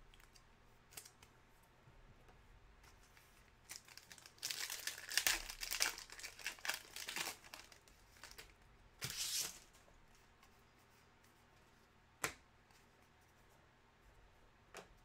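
A foil trading-card pack is torn open and crinkled by hand, in a run of ripping and crinkling from about four to seven and a half seconds in and one more short rip around nine seconds. Two single sharp clicks follow later on.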